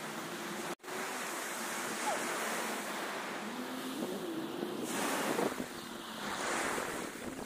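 Surf washing onto a sandy beach, with wind rushing over the microphone. The sound cuts out for an instant about a second in.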